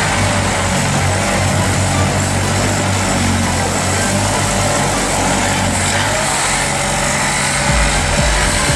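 A large vehicle or machine's engine running steadily, with mechanical noise.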